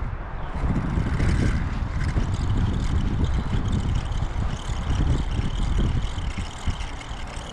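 Wind buffeting the microphone in uneven low rumbles over a steady rushing hiss, probably the river current.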